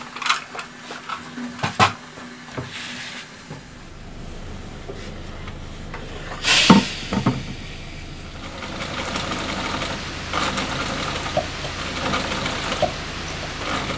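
Curtain fabric being handled with a few knocks and clicks, a short loud hiss from a steam iron about six and a half seconds in, then a Bernina electric sewing machine running for the last few seconds, over a low steady hum.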